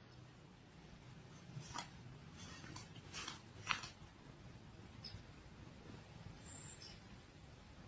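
Quiet room with a few faint clicks and light rustles, mostly between about one and a half and four seconds in.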